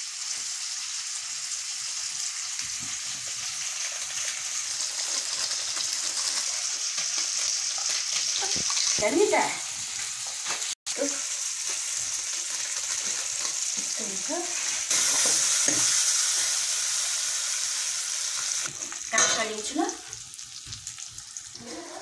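Food frying in hot oil, a steady sizzling hiss that gets louder about fifteen seconds in, with a few soft stirring and handling noises.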